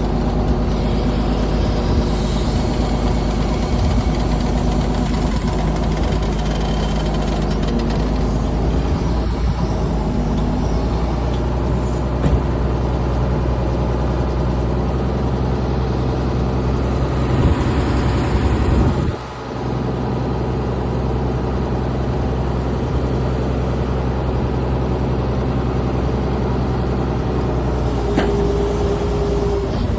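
Excavator's diesel engine running steadily while it works, its pitch shifting a third of the way in. It dips briefly about two-thirds of the way through, and a short higher whine sounds near the end.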